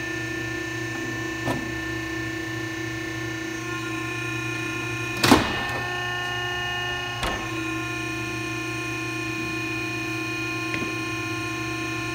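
Landing-gear retraction system of a Cessna O-2A: a steady electric-hydraulic whine and hum during a gear-retraction test. About five seconds in comes one loud clunk as the nose gear comes up and its doors close, and the whine changes pitch after it. Lighter clicks follow, with another knock near the end.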